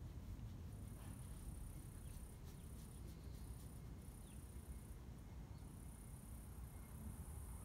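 Faint, steady high-pitched insect trill, starting about a second in and breaking off briefly twice, over a low rumble.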